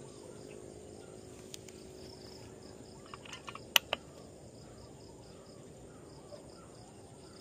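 Insects chirping steadily in the background, with a handful of small clicks a little past halfway, one of them sharp.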